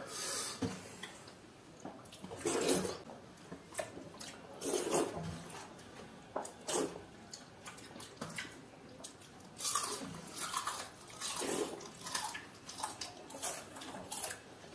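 Wet splashing and squelching of hands mixing and scooping water-soaked rice (panta bhat) in stainless steel plates, in irregular bursts every second or two, with faint clinks against the plates.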